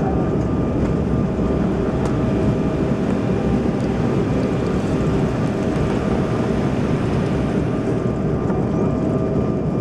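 Cabin noise of an Embraer 190 airliner during its landing roll: a steady rumble from the GE CF34 engines and the wheels on the runway, with a faint steady whine over it. The raised spoilers show the jet is still decelerating.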